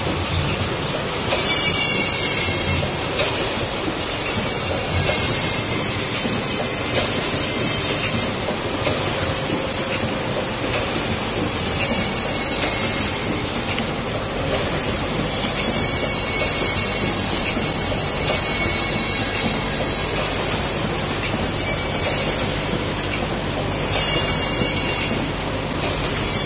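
Coffee capsule filling machine running with a steady mechanical clatter, and irregular bursts of high hiss every few seconds.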